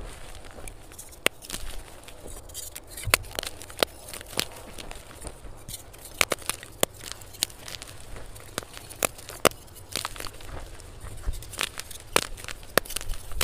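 Dyed gym chalk blocks crushed and broken by hand: irregular crisp snaps as pieces break, with a gritty crumbling of powder between them. Played sped up.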